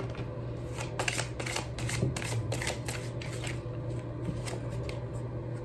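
A deck of tarot cards being shuffled by hand: a quick run of papery flicks and clicks, thickest in the first three seconds or so, over a low steady hum.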